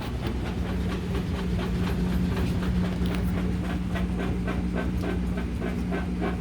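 Washing machine running with a steady hum and a rapid, even rhythmic clatter of about five knocks a second.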